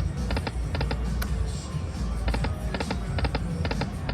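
Lightning Link Sahara Gold slot machine spinning its reels: short chiming tones in quick clusters, several times, over a steady low casino hum.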